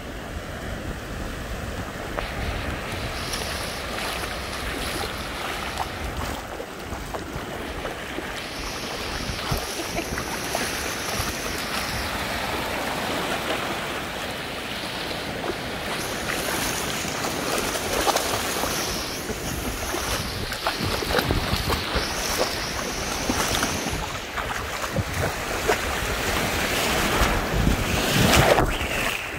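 Ocean surf washing in over shallow water, swelling louder toward the end, with wind buffeting the microphone.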